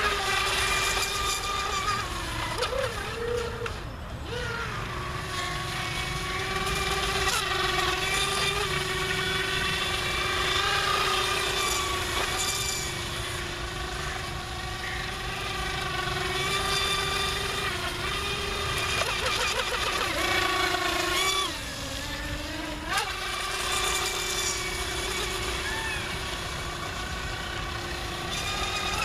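Small radio-controlled speed boat's electric motor, running on a 3-cell LiPo pack, giving a steady high whine at speed. The pitch wavers with the throttle, dips a little past twenty seconds in and climbs back.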